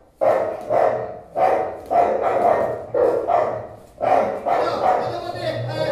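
Dog-like barking: a run of short barks, about two a second, with a brief pause a little past halfway.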